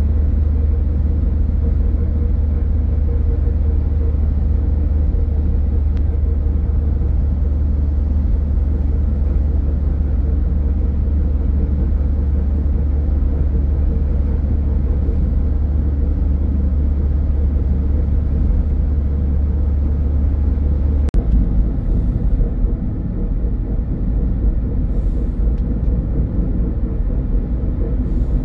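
Steady low rumble of a car driving at speed: tyre and engine noise with a faint steady hum above it. About 21 seconds in there is a short click, and the rumble changes and turns more uneven.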